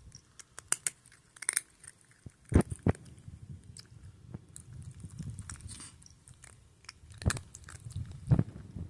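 A domestic cat eating dry kibble from a bowl, very close: irregular crunching bites and chewing, the loudest crunches about two and a half seconds in and again near the end.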